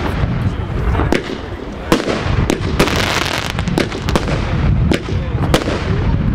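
VDN Armadillo fireworks firing a run of aerial shots. Sharp bangs of small shells bursting come about once a second, some in quick pairs, over a continuous noisy hiss.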